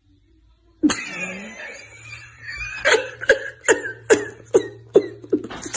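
A man laughing hard, breaking into short loud bursts about two or three a second after a near-silent first second.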